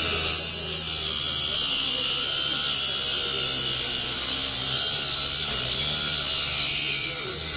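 Rotary tool with a thin cutting disc grinding into the stamped metal shell of a damaged SIM card slot: a steady high hiss over the motor's low hum, cutting off at the very end.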